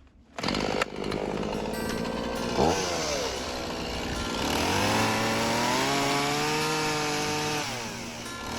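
Two-stroke carving chainsaw running and cutting into a wooden log. It comes in about half a second in, dips sharply and recovers near the three-second mark, then revs higher about five seconds in, holds there, and drops back near the end.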